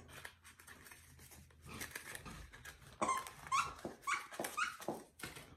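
A pet dog making a run of short, high squeaks, five or so within about two seconds in the second half, each one rising sharply in pitch.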